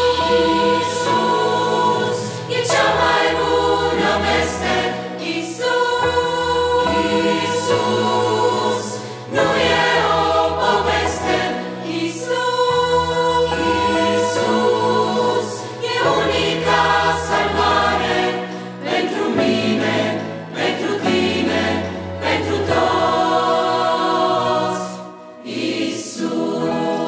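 Mixed adult and children's choir singing a Romanian Christian song, accompanied by piano, bass guitar and percussion, with regular percussion hits.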